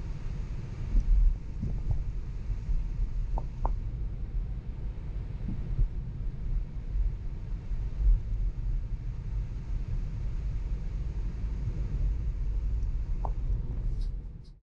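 Steady low road and tyre rumble inside a Tesla's cabin while driving, with a few faint clicks. The sound cuts off abruptly near the end.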